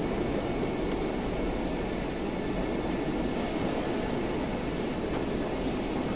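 Steady drone of background machinery in a workshop, unchanging throughout.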